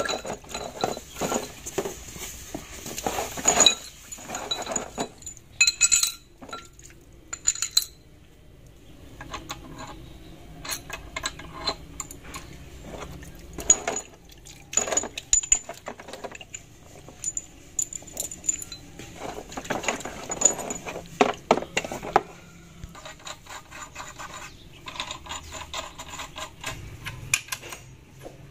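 Scattered metallic clinks and taps of steel parts being handled: bearing caps and their bolts being set onto a truck differential carrier, with a hand wrench on the bolts.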